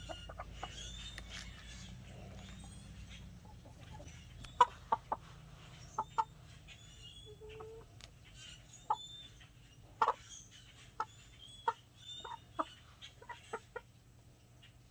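A flock of Ayam Cemani chickens clucking: short, sharp clucks scattered irregularly, several in quick succession, over quieter high chirping calls.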